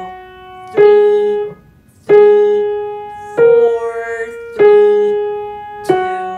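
Piano played one note at a time on the black keys, a slow right-hand beginner melody. Five single notes fall at an even pace of about one every second and a third, and each rings and fades before the next is struck.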